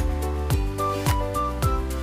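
Background music with a steady drum beat under held chords and a simple melody.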